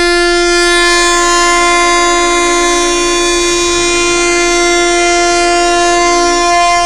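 Vehicle horn held down in one long, steady, unbroken blast at a single pitch, sounded in protest by the roadside-assistance tow-truck convoy.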